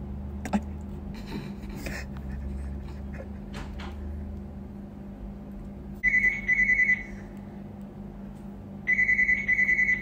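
Telephone ringing twice, each ring a high trilled double burst (brr-brr), over the steady low hum of an idling car.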